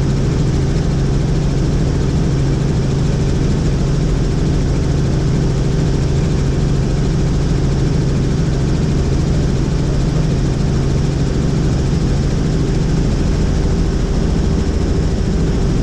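Helicopter's engine and rotors running steadily: a loud, constant drone with an unchanging low hum.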